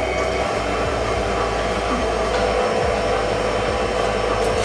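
Electric stand mixer running steadily at one speed, its wire whisk beating mashed potatoes in a steel bowl: a constant motor hum with a steady whine.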